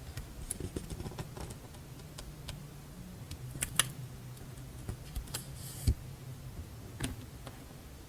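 Stationery and paper goods handled on a desk: scattered light taps and clicks, with a brief paper rustle about five and a half seconds in, over a faint low hum.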